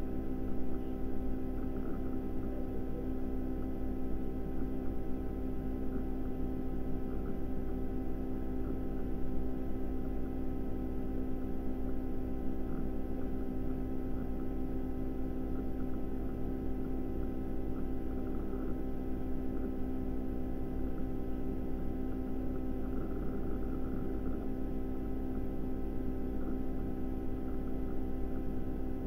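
Steady electrical hum made of several constant tones over a low drone, unchanging throughout.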